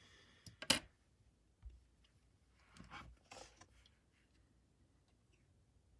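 Faint handling noises on a desk: a sharp click just under a second in, then two brief soft rustles about three seconds in.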